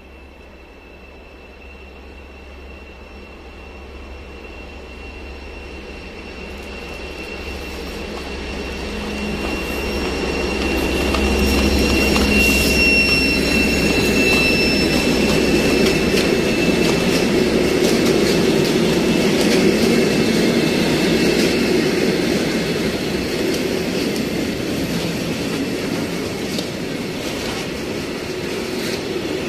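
A BR232 diesel freight locomotive approaches, its low engine rumble growing steadily louder and passing about a third of the way in, with a high wheel squeal. It is followed by a long rake of flat wagons loaded with rails rolling by with a steady rumble and wheel clatter.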